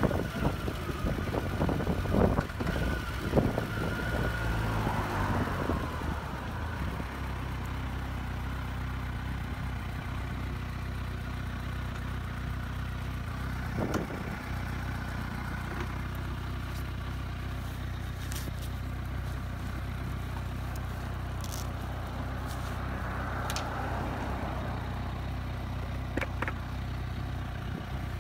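Kawasaki Versys 1000's inline-four engine idling steadily at a standstill. Over the first several seconds, wind noise on the microphone dies away as the bike rolls to a stop.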